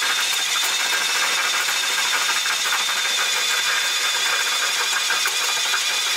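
Milwaukee M18 cordless drill running steadily under load, its bit boring through a semi truck's steel frame rail, with a constant high whine over the grinding of the cut. It stops suddenly right at the end.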